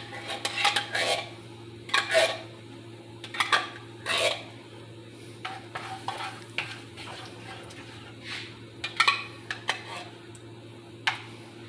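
A spoon scraping thick condensed soup out of a metal can and stirring it into a saucepan, with irregular knocks and clinks of the spoon against the can rim and the pan. A steady low hum runs underneath.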